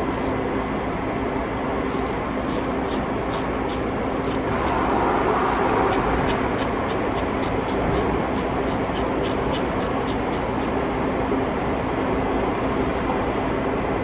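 A hand ratchet clicking in quick, irregular runs as the new turbo speed sensor on a DAF CF85 is wound in, the clicks starting about two seconds in and coming closer together toward the end, over a steady workshop drone with a low hum.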